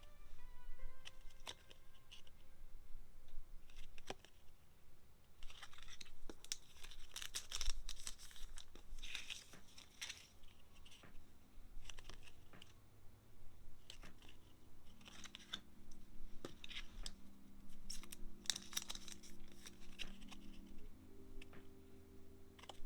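Paper and tape packaging being torn, peeled and crinkled in a run of short, irregular rustles while photocard mail is unwrapped. Soft background music plays underneath.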